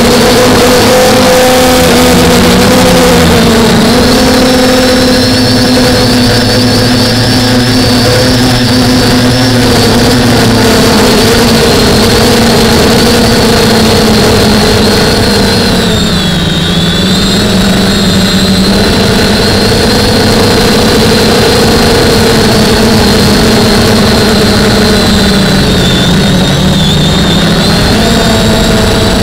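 DJI F450 quadcopter's E300 brushless motors and propellers whining steadily in flight, heard from the camera on board, over a rushing noise of air. The pitch dips and recovers about halfway through as the motors slow, and again more slightly near the end.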